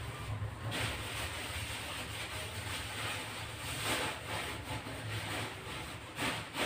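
Gas stove burner running steadily under a pot of soaked sago and water as it heats: a steady low rumble with a hiss that swells now and then.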